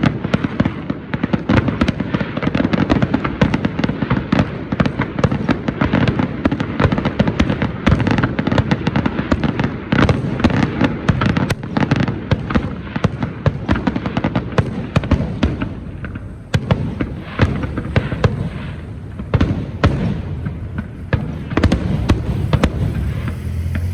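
Dense, rapid popping and crackling, many sharp reports a second, thinning out and becoming duller about two-thirds of the way through.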